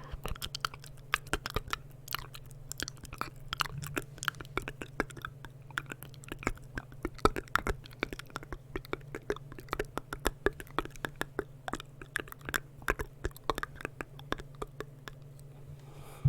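Close-miked ASMR mouth sounds: rapid wet clicks and smacks of tongue, lips and saliva, several a second and uneven in loudness, over a steady low hum.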